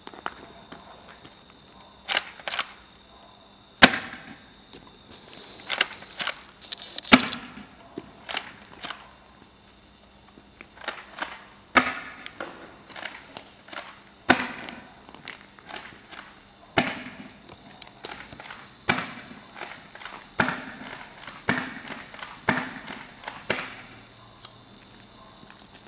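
Swiss Arms Shotgun MS spring-powered airsoft pump shotgun being racked and fired again and again: a series of sharp mechanical clacks and snaps, some in quick pairs, with short pauses between rounds.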